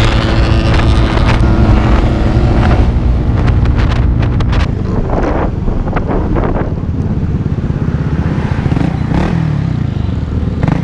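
Motorcycle engines on the road with wind on the microphone: a bike running close alongside in the first few seconds, then the engine note drops and gets quieter as the bike slows down.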